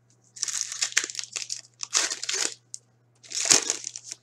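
Foil hockey-card pack wrapper being torn open and crinkled by hand, in three bursts of crackling.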